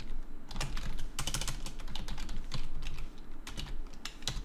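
Typing on a computer keyboard: a quick run of keystrokes, then a few separate key presses.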